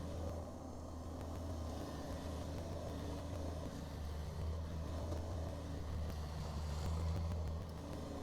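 Kubota BX compact tractor's diesel engine running steadily, a low hum that swells a little and eases off as the load changes.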